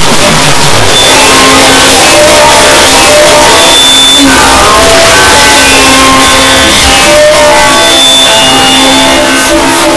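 A loud, dense wall of many overlapping cartoon clip soundtracks playing at once, mostly music, with scattered short notes over a constant harsh hiss.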